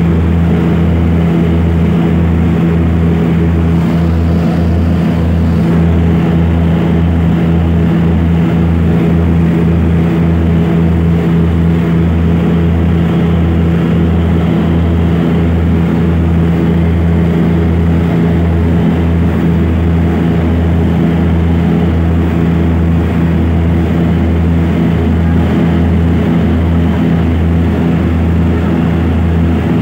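Propeller airliner heard from inside the cabin in level flight: a loud, steady engine-and-propeller drone whose low hum throbs evenly, about twice a second.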